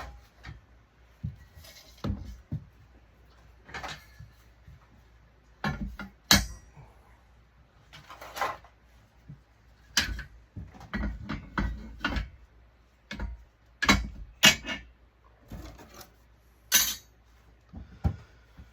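Extruded aluminum pieces from a digital ballast clanking and clinking as they are handled and set down, a string of sharp irregular knocks with short pauses between.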